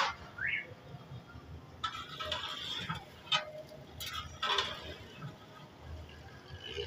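A long metal ladle scraping and knocking against a large metal cooking pot (degh) as it stirs and lifts boiled beef chunks from the stock, in a few short clatters.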